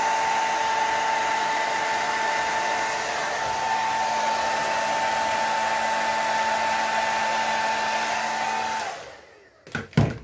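Remington hand-held hair dryer blowing steadily, a hiss of air with a high whine and a low hum, switched off about nine seconds in so that it dies away, followed by a few knocks as it is put down.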